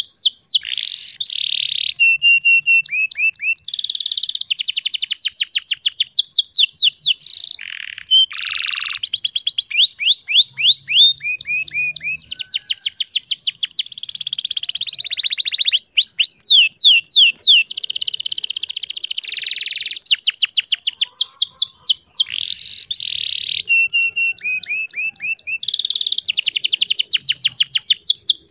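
Domestic canary singing a long, continuous song made of fast trills: runs of rapidly repeated high notes, switching to a new trill every second or two with only brief breaks.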